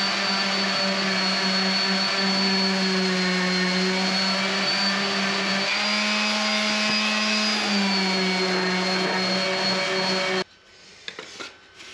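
Electric random orbital sander running steadily with a hum and a thin high whine as it sands a maple axe handle with high-grit paper, taking out belt-grinder marks. Its pitch rises a little for a couple of seconds midway, and it shuts off abruptly near the end.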